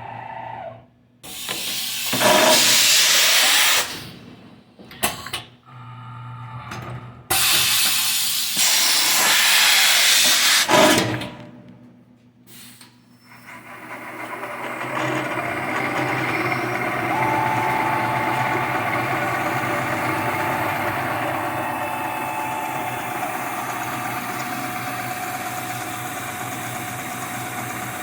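Two long bursts of loud compressed-air hissing from the 1980 Shizuoka AN-S CNC mill, typical of a tool change between operations. After a short lull, the mill's spindle and drives start up and run steadily with a held whine.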